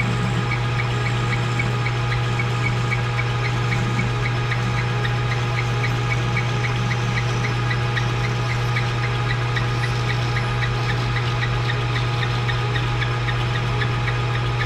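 Metal lathe running steadily under power, a constant motor and drive hum with a regular light ticking about three times a second.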